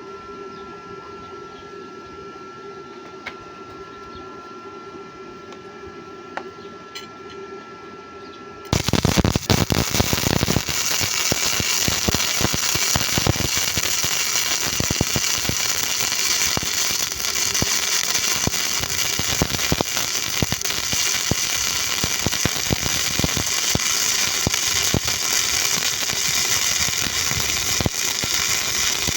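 Gasless flux-core MIG welder: a steady hum, then about nine seconds in the arc strikes and gives a loud, dense, continuous crackling and spattering that lasts over twenty seconds.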